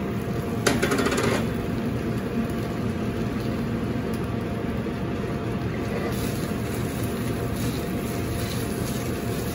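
Steady low rumble of a commercial gas range's lit burners, with a short noisy burst about a second in as spinach goes into the hot oiled sauté pan.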